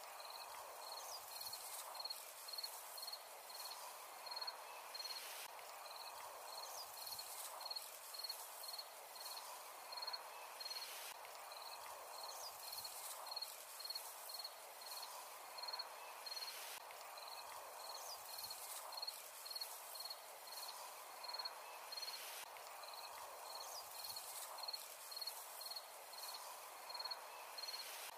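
A cricket chirping steadily, about two short chirps a second, over a steady hiss of wind through grass.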